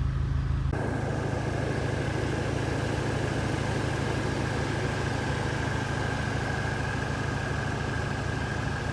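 Seat Leon Cupra R's turbocharged 2.0-litre four-cylinder engine idling steadily; a thin steady whine joins the hum about a second in.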